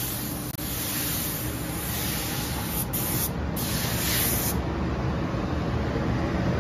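Compressed-air paint spray gun hissing as it coats a motorcycle gas tank, cut off briefly twice around three seconds in, then stopping about four and a half seconds in.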